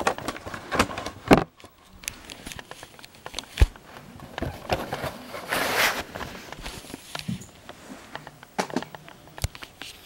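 Handling noise of plastic VHS tapes and their cases being picked up, moved and set down: scattered clicks and knocks, with a short rustle about six seconds in.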